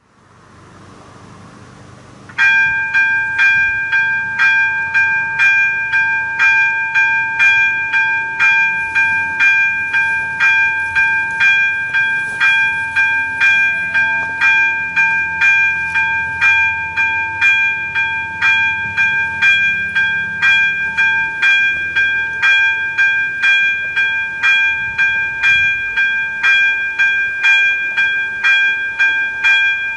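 ZV-02 level-crossing warning bell starting about two seconds in and then ringing steadily and loudly at about two strikes a second: the crossing has activated to warn of an approaching train.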